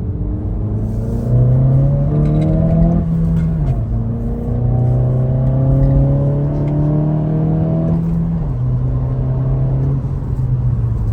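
Acura Integra's turbocharged four-cylinder engine accelerating through two gears, heard from inside the cabin: its pitch rises, drops at an upshift, rises again, drops at a second upshift and then runs steadily. A stiffer PRL rear motor mount is fitted, passing more engine noise and vibration into the car.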